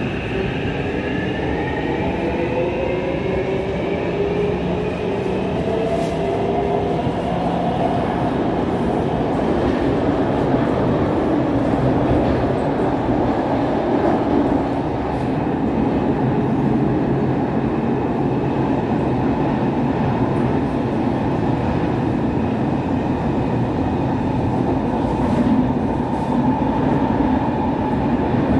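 Kawasaki C151 metro train's permanent-magnet traction motors whining, several tones rising in pitch as the train accelerates away from the station. This settles into a steady running noise of the car and its wheels on the rails in the tunnel.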